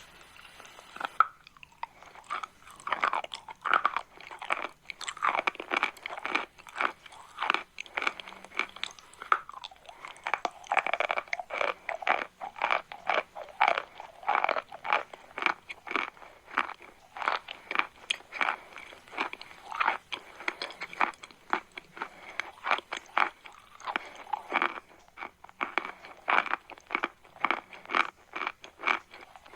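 Chalk crunching close to the microphone: a dense run of irregular crisp crunches, several a second, beginning about a second in.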